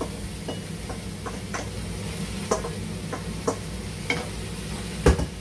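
Muscat pumpkin cubes tipped and stirred into a pot of vegetables sweating in olive oil: irregular light clicks and knocks of pieces and spoon against the pot, a louder knock near the end, over a light sizzle. The cooker-hood extractor fan hums steadily underneath.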